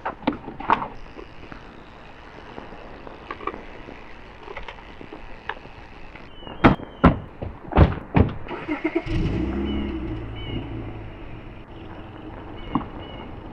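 Several sharp thunks, like car doors shutting, then the Acura sedan's engine starts about nine seconds in. Its revs drop after the start and it settles into a steady idle.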